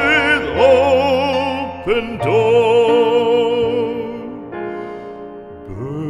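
Classical art song: a trained singer holds a sung phrase with wide vibrato over piano accompaniment, the voice ending about four seconds in and the piano going on alone.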